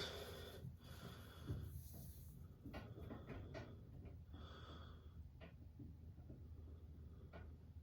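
Near silence: a faint low hum from an LG top-load washing machine running its wash cycle. A few soft breathy sounds and light clicks are heard close to the microphone.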